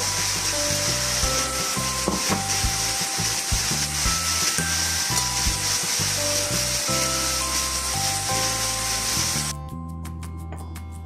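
Food sizzling in a frying pan: a steady hiss over light background music. The sizzle cuts off suddenly near the end, leaving the music and a few light clinks.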